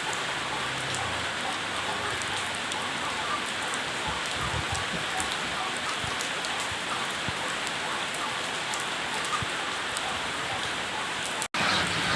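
Steady hiss of rain falling, with faint scattered drop ticks. It cuts out for an instant near the end and comes back a little louder.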